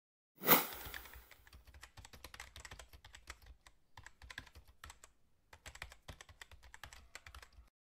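A sharp transition hit about half a second in that fades over a second, then keyboard-typing clicks in three quick runs with short pauses between them: a typing sound effect.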